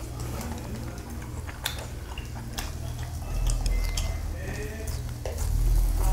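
Metal chopsticks clinking against a steel bowl and a wire grill, a few sharp clinks scattered through, over the sounds of chewing.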